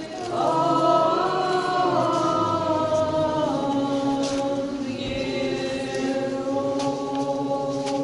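Choir singing an Orthodox akathist in slow chant, voices holding sustained chords; the harmony shifts about three and a half seconds in.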